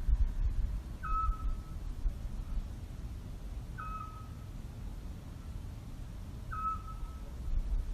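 A bird's short whistled call, one note with a brief higher start, repeated three times about three seconds apart.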